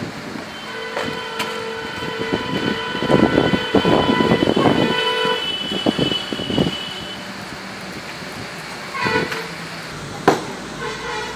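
A vehicle horn honking: one long held blast with brief breaks, then two short toots near the end. Noisy rustling runs through the middle of the long blast, and a sharp knock comes about ten seconds in.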